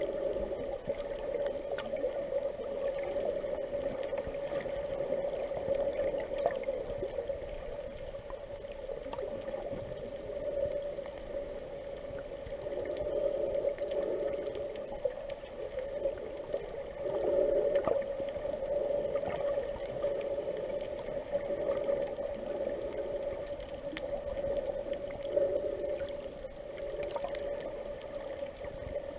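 Muffled underwater sound from a submerged camera: water swirling and moving around it, swelling and easing every few seconds, over a steady hum.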